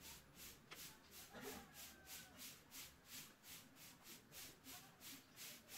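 Faint wooden slide rubbing back and forth along the grooved wooden frame of a hand-made slingshot pistol, in short even strokes about three times a second.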